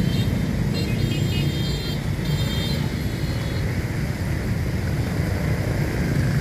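Motorbike and car traffic on a wet road, with a steady low engine rumble and tyre noise. Several short, high beeps sound in the first three and a half seconds and then stop.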